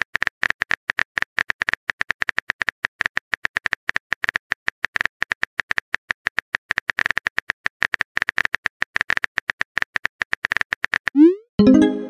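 Phone keyboard typing clicks, rapid and irregular, several a second, as a text message is typed out. Near the end the clicks stop and a short rising swoosh and a tone sound as the message is sent.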